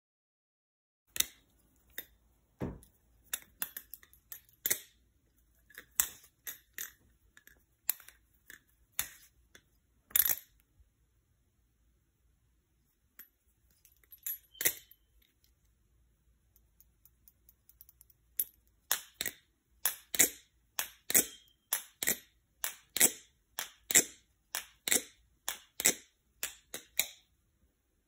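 Balisong (butterfly knife), a clone of the Chimera with a fake blade, being flipped: its handles clack sharply against the blade. Irregular clacks come from about a second in, then after a lull a steady run of about two clacks a second.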